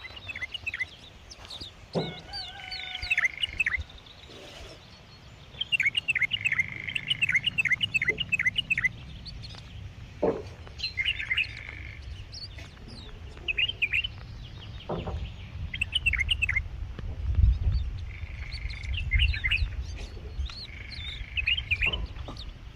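Bulbul singing in repeated bursts of quick chirping notes, with short pauses between phrases. A low rumble rises around two thirds of the way through, and a few brief knocks are heard.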